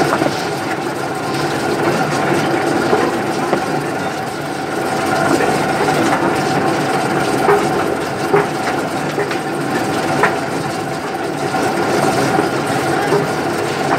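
Arecanut de-husking machine running steadily: a constant mechanical hum with a continuous rattle of nuts and husks passing through it, and a few sharper knocks about halfway through.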